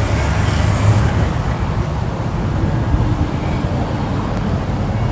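Steady low engine rumble mixed with road-traffic noise, from an approaching diesel-hauled freight train and cars at a grade crossing.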